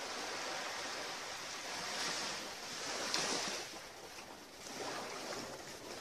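Small waves lapping onto a rocky shore: a soft, noisy wash that swells and eases several times, loudest about two to three seconds in.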